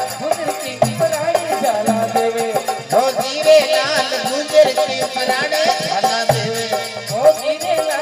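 Live Rajasthani folk music: harmonium and electronic keyboard playing the melody over a steady clicking, rattling percussion beat.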